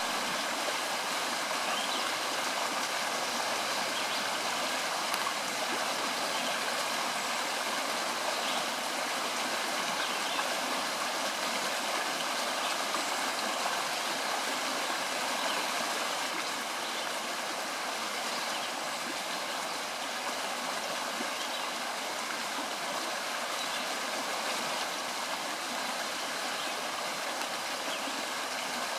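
Shallow stream running over a stony bed: a steady babbling rush of water.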